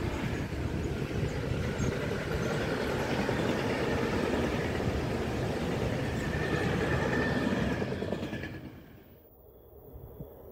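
Freight train of covered sliding-wall wagons rolling past on the rails, a dense steady wheel-on-rail rumble and rattle. About eight seconds in the noise falls away sharply, leaving a much quieter background.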